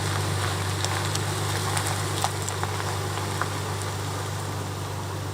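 A car engine running steadily with a low hum, with a few light clicks scattered over it.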